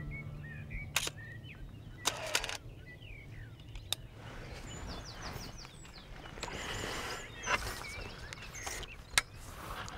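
Outdoor dawn ambience with small birds chirping: short gliding chirps, and a run of quick repeated chirps about halfway through. A few sharp clicks break in, at about one, two and four seconds and again near the end.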